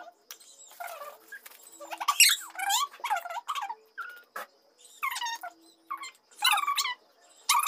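A young girl's wordless, high-pitched squeals and whines, in short cries that slide up and down in pitch, the loudest about two seconds in.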